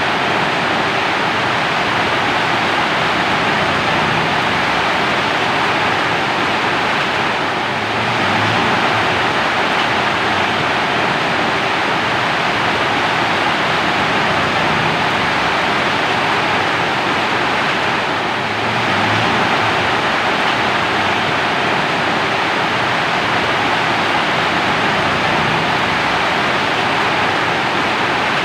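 Steady, heavy rainfall, an even hiss of dense drops with no distinct patters standing out. The loudness dips slightly about every ten seconds.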